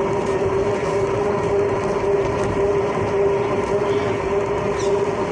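Van in motion: a steady whine that holds one pitch, over an even road rumble.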